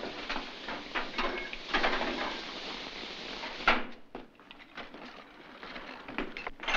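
Hurried clattering and knocking of wooden office furniture and fittings being moved about, with one sharp loud knock about three and a half seconds in, then only faint scattered clicks.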